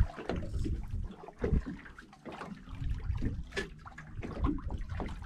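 Water sloshing and trickling irregularly, with a few light knocks, as a caught fish is held in the water alongside the boat before release.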